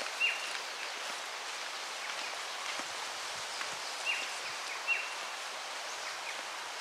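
Outdoor bushland ambience: a steady hiss of wind in leaves or distant water, with a few short, high bird chirps, one near the start and two around four to five seconds in.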